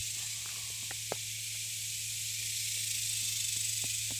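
Sharp taps of a small hammer-like tool against chalky rock while chipping pyrite loose: two clear taps about a second in and a couple of fainter ones near the end. Under them runs a steady high hiss.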